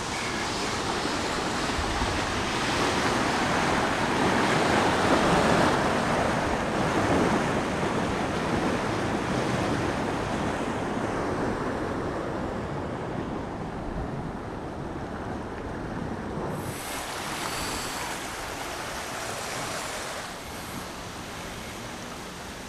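Floodwater rushing through a swollen creek running about nine feet deep: a steady noise of churning water, loudest a few seconds in. About three-quarters of the way through the sound changes abruptly to a quieter, duller noise.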